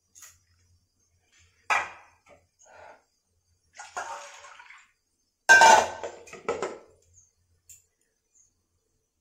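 Steel pots knocking together and water sloshing and pouring as seeds are washed and the water decanted from one pot into another. A knock about two seconds in, a pour around four seconds, and the loudest clatter of metal and water about five and a half seconds in.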